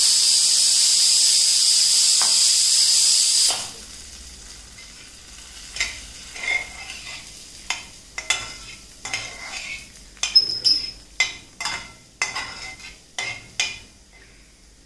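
Hot oil tadka of fried garlic, ginger and chillies sizzling loudly and steadily as it goes into the dal, cutting off suddenly about three and a half seconds in. After that, a steel spatula stirring and scraping in a metal kadai, with irregular clicks and taps.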